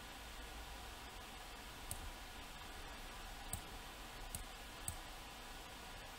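Computer mouse clicking, four short clicks spaced irregularly, over a faint steady low hum.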